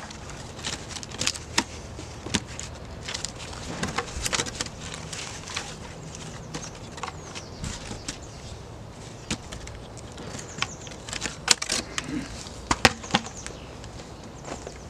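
Dead wooden logs knocking and scraping together as a log is fitted on top of another between upright stakes, giving irregular sharp knocks and clicks, with footsteps on dry ground near the end.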